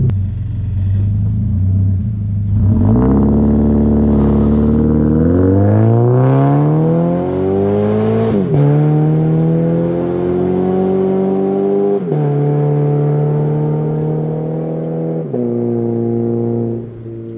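Scion FR-S flat-four boxer engine through a catless, non-resonated straight-pipe exhaust, running low at first, then accelerating hard about three seconds in with a steadily rising pitch. It is interrupted by three upshifts, each a sudden drop in pitch.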